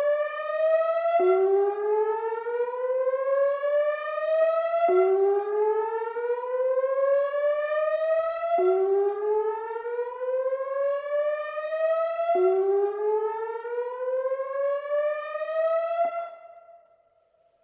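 ATI HPSS-16R electronic rotating tornado siren sounding its whoop signal on a weekly test. A tone rises over about three and a half seconds, drops back and rises again, about four times, before the siren cuts off near the end and the sound dies away.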